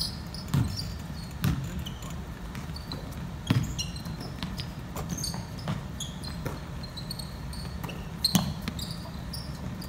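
Basketball bouncing on a wooden gym floor, a sharp thud every second or two with the loudest near the start and near the end, mixed with short high squeaks of sneakers on the hardwood.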